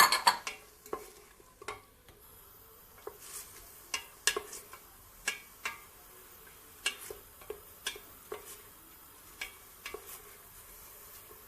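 Cubed meat with onion and green pepper sizzling in oil in a pressure cooker pot while being stirred. A utensil knocks and scrapes against the pot at irregular intervals, with a cluster of louder knocks right at the start.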